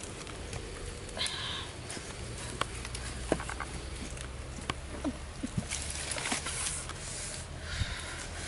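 Dry leaves and twigs rustling and snapping as a stick is worked in a small wood fire, with scattered small clicks and two short rustles, one about a second in and one near the end.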